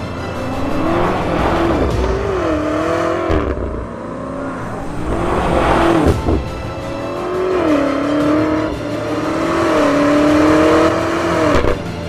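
Car engine revving over background music, its pitch climbing and dropping back about three times, the last rise the longest.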